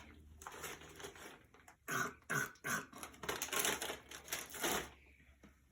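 Potato chips crackling: a series of short, irregular crunchy noises, the loudest a couple of seconds in and again near the end.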